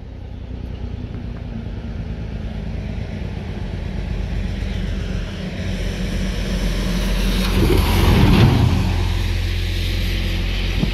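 EMD SD40 diesel-electric locomotive with a 16-cylinder engine, approaching slowly from a distance: a steady low engine drone that grows gradually louder. About eight seconds in, a louder rushing swell rises and fades.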